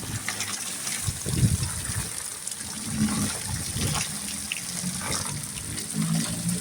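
Heavy rain with water gushing and splashing steadily, a continuous pour of runoff with scattered drips and patters.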